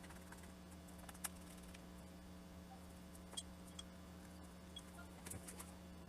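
Near silence with a few faint, sharp clicks and taps, a small cluster of them near the end, as of small laptop parts being handled.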